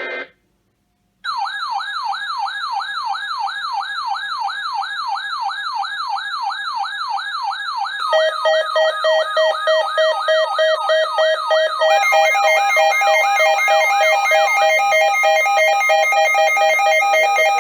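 Electronic siren alert tones. A fast yelp sweeps up and down about three times a second, starting about a second in after a brief silence. A pulsing steady alert tone joins it about eight seconds in, and more steady tones are layered on about twelve seconds in.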